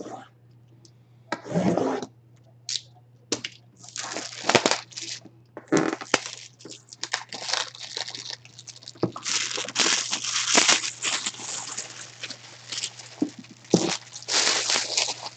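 Hands sliding, rubbing and tapping on cardboard boxes, making irregular scrapes, crinkles and sharp knocks over a steady low electrical hum.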